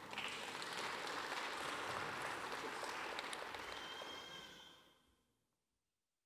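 An audience clapping and applauding, dying away about five seconds in.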